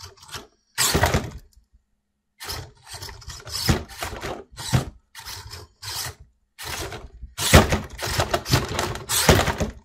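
Redcat SixtyFour Impala RC lowrider hopping its rear end on its servo-driven suspension: repeated thunks and clatter as the body drops and rebounds on the rear axle. One burst comes about a second in, then they follow one another rapidly from about two and a half seconds on.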